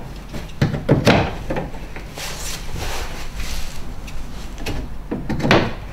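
Cladding gauges being set in place on a fibre cement cladding board: handling knocks and scrapes, loudest about a second in and again near the end.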